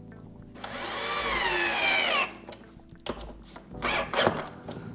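Cordless drill-driver driving a screw into a cup hinge's mounting plate on a wooden cabinet panel: the motor whines for about a second and a half, rising in pitch and then falling as it slows, followed by a few short bursts about a second later.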